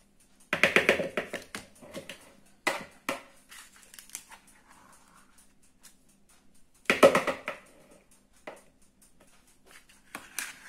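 Cream cheese being spooned from its pack into a plastic mixing bowl: a few short bursts of clattering knocks and scrapes. The loudest come about half a second in and again about seven seconds in.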